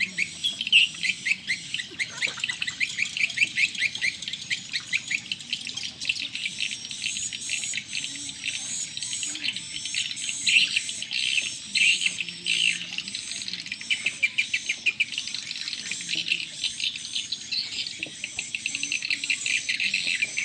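A dense outdoor chorus of birds chirping in rapid, repeated short notes, with insects calling along with them.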